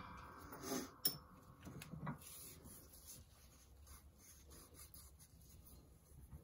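A few light metal clinks and knocks in the first two seconds, the loudest about a second in, as the axle shaft and steel press spacers are handled on the hydraulic shop press bed. After that, only faint handling rubs.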